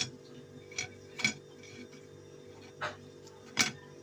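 Five sharp clicks and taps at irregular spacing: a kitchen utensil knocking against toast and a plate. A faint steady hum lies under them.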